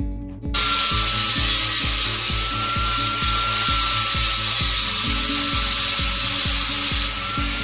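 Angle grinder cutting into a small steel gas bottle: a steady high whine over a loud grinding hiss, starting about half a second in and easing off near the end. Background music with a steady beat plays underneath.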